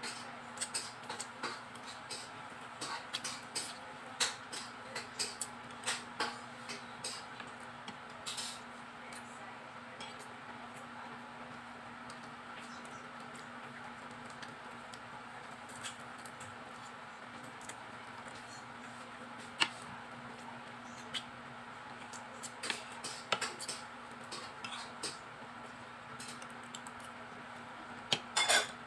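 Eating at a plate: scattered small clicks and taps as food is picked apart by hand and chewed, busiest at the start and near the end, with a cluster of louder clicks just before the end. A steady faint hum runs underneath.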